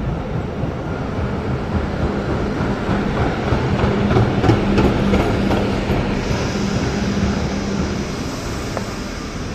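Yellow TEC light-rail tram pulling into an underground station platform: a steady rumble of wheels on the rails with a low motor hum, loudest about halfway through as it passes and easing as it slows to a stop. A high steady tone comes in about six seconds in.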